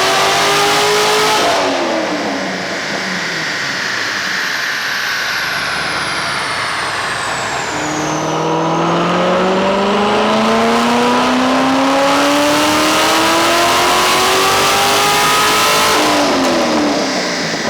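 Car engine under hard acceleration, its pitch climbing steadily and dropping sharply twice, about a second and a half in and again near the end, as at gear changes or lifting off the throttle.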